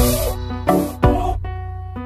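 Electronic background music: held synth chords over a steady low bass, with the notes changing about two-thirds of a second and about one second in.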